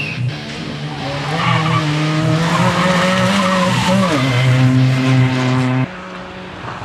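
Toyota Starlet rally car's engine at high revs as it drives through a bend, the revs dipping briefly about four seconds in and then climbing again. Just before the end the loud engine cuts off abruptly, leaving a quieter, steady engine hum.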